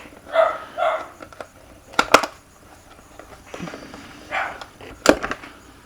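A dog barking in short bursts a few times, which the owner guesses is at someone coming home. Sharp clicks come about two seconds in and again near the end.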